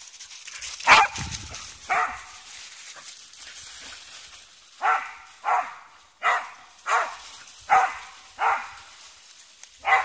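A dog barking in play. Two sharp barks come about a second apart, then after a pause a quick run of about seven barks, roughly one every two-thirds of a second.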